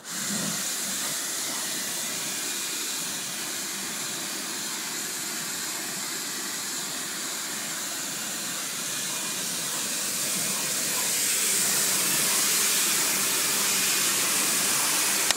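Kärcher electric pressure washer running, its motor humming under the steady hiss of the high-pressure water jet. It gets a little louder about ten seconds in and cuts off suddenly at the end.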